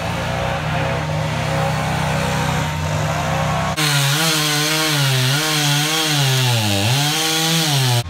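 Chainsaw running at high speed. About four seconds in the sound changes abruptly to a saw whose pitch repeatedly dips and recovers, typical of a chainsaw slowing under load in the cut and speeding up again.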